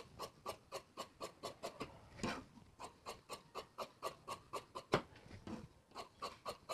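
Large tailor's scissors snipping through cloth in quick, even strokes, about four a second, cutting bias strips. One sharper knock about five seconds in.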